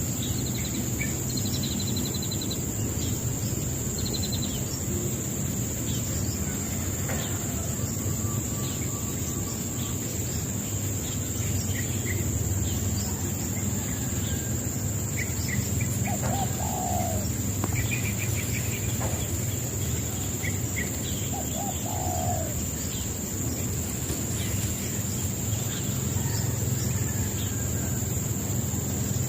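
Small birds chirping in scattered short calls, some in quick little clusters. Under them runs a steady high-pitched drone and a constant low rumble.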